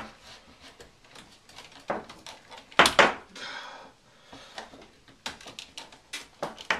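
Scattered knocks and clatter of PEX pipe being handled and fed through a hole in the framing, with one louder knock a little under three seconds in, followed by a brief scraping rustle.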